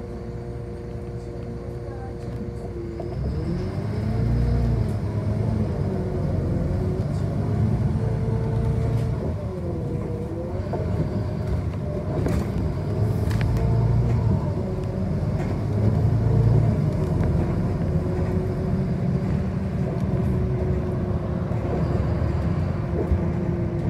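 City bus running, heard from inside the passenger cabin over a low rumble. Steady tones at first; about three seconds in it grows louder and the motor's pitch rises and falls repeatedly as the bus speeds up and slows.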